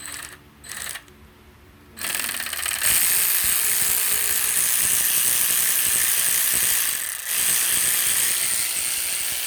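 A ratchet wrench running out a bolt from the engine's rear timing chain cassette: a couple of short clicks, then about two seconds in a loud, continuous rapid ratcheting lasting some seven seconds, with a brief break near the end.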